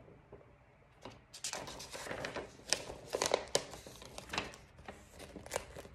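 Sheets of a printed paper packet rustling and crinkling as its pages are turned, a run of crisp rustles starting about a second in, loudest in the middle, dying down near the end.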